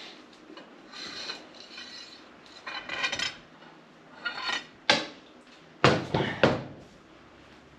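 Greasy metal steering-box parts, a shaft and roller bearing, clinking and rattling as they are handled, then four sharp metal knocks in the second half.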